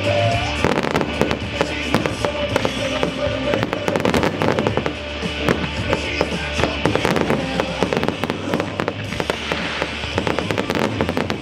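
A fireworks display firing in rapid succession: dense, irregular bangs and crackling from bursting aerial shells and ground-level fountains, with music playing underneath.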